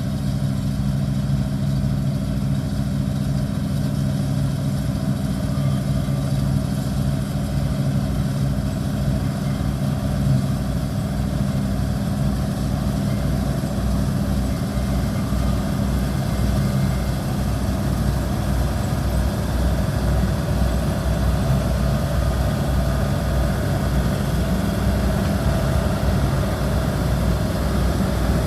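Combine harvester running steadily at work in a wheat field, a continuous engine drone with a low hum under a constant mechanical rush.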